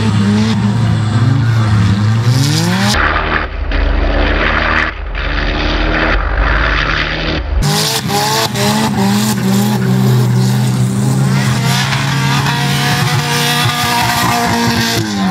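Rally-cross wreck-race cars' engines revving hard on a dirt track, the pitch repeatedly climbing and dropping back as they accelerate and shift. For a few seconds about three seconds in, the sound turns duller with a heavy deep rumble.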